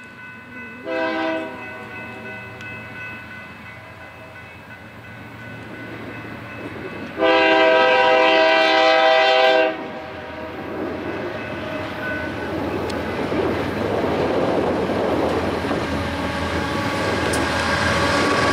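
Horn of a BNSF freight locomotive sounding for a road crossing: a short blast about a second in, then a long, louder blast. The locomotives' engines and wheels rumble louder and louder as the train draws near.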